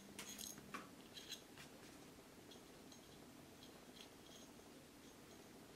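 Small steel parts of a Browning Hi-Power clicking against the frame as the sear and sear lever are fitted by hand: a few sharp clicks in the first second and a half, then faint light ticks every half second or so.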